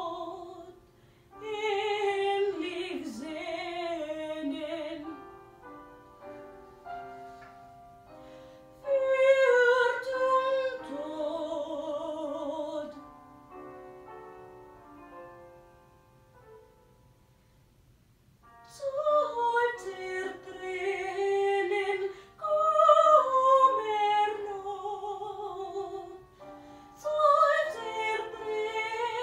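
A woman singing in a classical, operatic style with vibrato, accompanied by piano. The voice stops a few times, leaving the piano sounding alone; the longest of these gaps falls in the middle, where the piano plays quietly.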